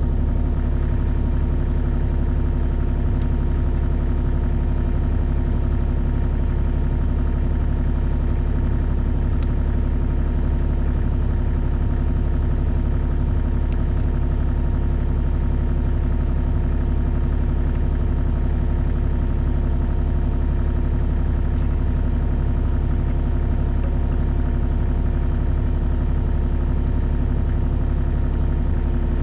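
Bobcat 325 mini excavator's diesel engine idling steadily, a constant low hum with no change in speed.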